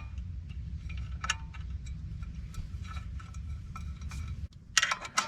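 Pressure plate bolts being put in by hand on a clutch and flywheel: scattered small metallic clicks and ticks, with a louder cluster of clinks near the end, over a steady low hum.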